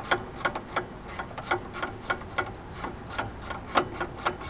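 Small ratcheting wrench clicking as a brake line bracket bolt on the strut is turned down, a quick, uneven run of ticks, about four to five a second.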